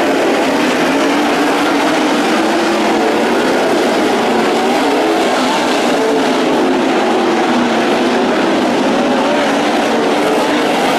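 Several sprint car V8 engines racing together at high revs, a loud steady din whose pitches waver up and down as the cars throttle on and off.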